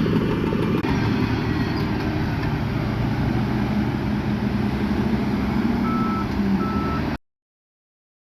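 Heavy diesel earthmoving machinery running steadily with a low rumble. A reversing alarm beeps twice near the end, and the sound stops abruptly about seven seconds in.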